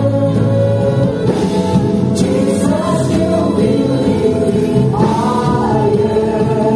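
Live gospel praise-and-worship music: several singers holding long notes over a band with keyboard and guitar, moving to new notes about a second in and again about five seconds in.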